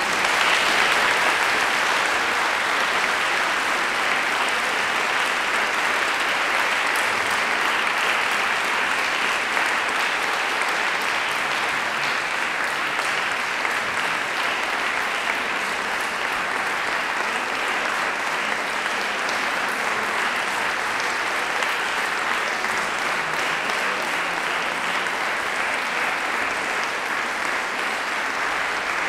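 Sustained audience applause: many people clapping steadily.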